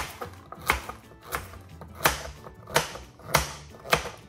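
A kitchen knife chopping a carrot into small pieces on a chopping board: sharp knocks of the blade on the board at an even pace, about one every two-thirds of a second.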